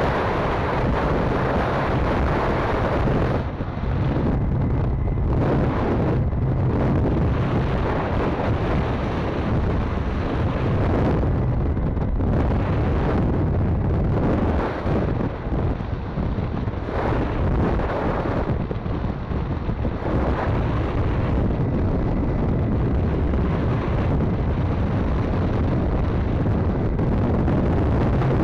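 Wind rushing and buffeting over the camera microphone on a moving Arora 50cc motorbike, with the small engine's steady low hum underneath. The buffeting eases briefly a few times.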